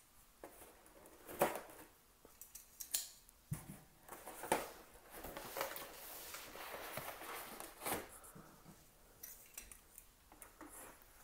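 A cardboard box being handled and opened, its packing tape being cut: scattered light taps and scrapes, with a few seconds of soft rustling in the middle.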